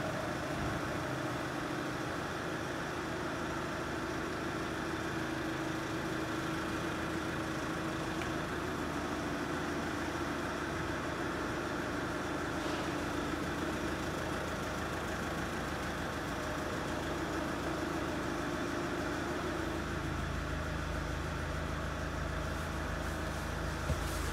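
Four-cylinder 2.0 turbo-diesel engine of a 2007 Daewoo Winstorm (Chevrolet Captiva) idling steadily. The low hum grows heavier about twenty seconds in, and there is a single click near the end.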